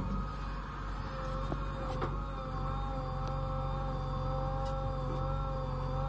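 JCB 3DX backhoe loader's diesel engine running under load with a steady hydraulic whine as the backhoe arm swings back and lowers into the pit, with a few short clanks.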